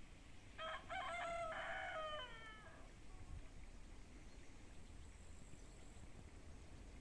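A rooster crowing once: a few clipped opening notes, then a long held note that drops in pitch at the end, lasting about two seconds.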